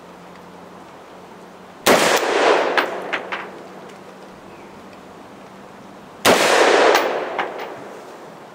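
Two shots from a Colt AR-15 A2 rifle firing 5.56 mm NATO rounds, about four seconds apart. Each shot rolls off in an echo lasting about a second.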